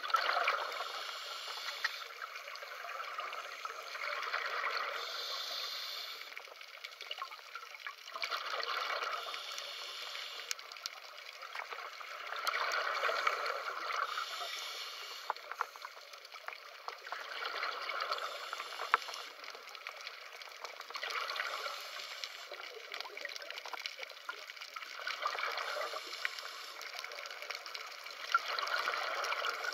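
Scuba diver's regulator underwater: a burst of exhaled bubbles rushing past about every four seconds, fading between breaths.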